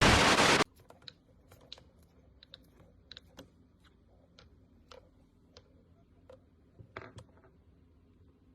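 A short, loud burst of noise, then a run of faint, irregular clicks and taps.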